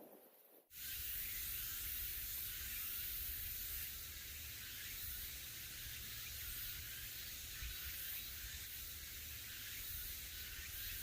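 Steady outdoor hiss with a low, uneven rumble of wind buffeting the microphone, starting abruptly about half a second in.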